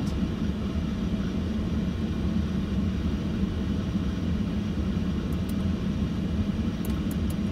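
Steady low hum and rumble inside the cabin of a 2007 Audi A8 W12 with its W12 engine idling. A few faint clicks about five and seven seconds in, as the MMI controller steps through the news list.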